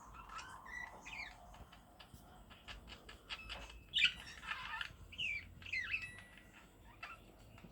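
Budgerigars chirping and warbling in short, quick pitch-sliding calls, with a few light clicks and taps; the loudest call comes about four seconds in.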